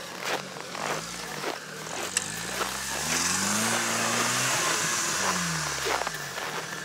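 Off-road vehicle engine revving: the pitch climbs about a second and a half in, holds high for a couple of seconds, then drops back near the end.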